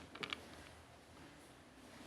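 A few faint, light clicks as small play-cooking items are handled and put in, then quiet room tone.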